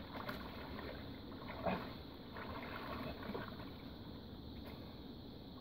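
Steady faint rush of river water, with a few soft sloshes and splashes from a man moving chest-deep in the water; the clearest comes about a second and a half in.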